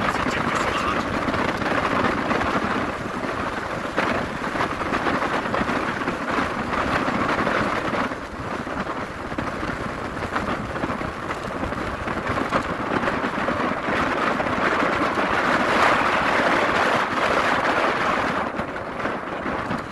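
Steady rushing noise of riding in a moving vehicle over desert sand: wind and road noise with no clear engine note, easing a little about eight seconds in and swelling again later.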